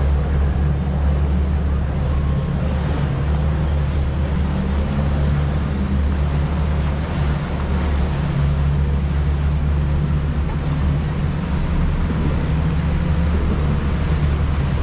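Outboard engines of a center-console fishing boat running at a steady speed, a continuous low drone, with water washing along the hull.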